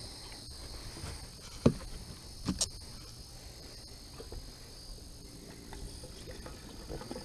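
Steady high-pitched insect chirring, with a sharp click about a second and a half in and a couple of knocks about a second later.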